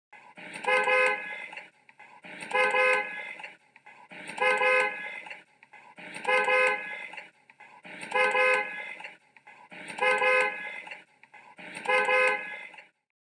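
Car horn honking seven times, each honk a steady blast of about a second and a half, repeated at an even pace about every two seconds.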